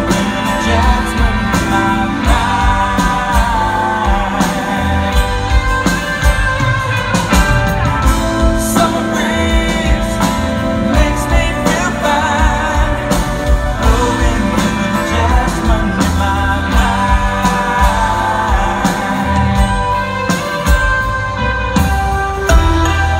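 Live band playing a soft-rock song: a male singer over strummed acoustic guitar, bass and drums.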